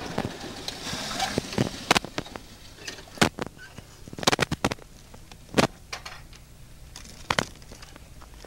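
Irregular sharp knocks and clicks of a handheld camcorder being jostled, over the low steady hum of a moving vehicle.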